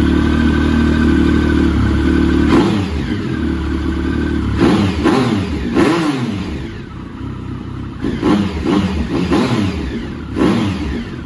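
Triumph Sprint ST 1050's three-cylinder engine running on the stand, held at a steady fast idle for about two and a half seconds, then revved in a string of quick throttle blips, each rising sharply and falling back, reaching around 6,000 rpm.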